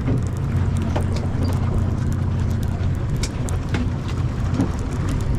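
Steady low drone of the fishing boat's engine, with scattered sharp clicks and knocks of gear on deck.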